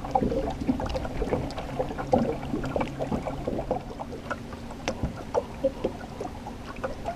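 Small boat motor running steadily at trolling speed, with water lapping and slapping irregularly against an aluminium hull.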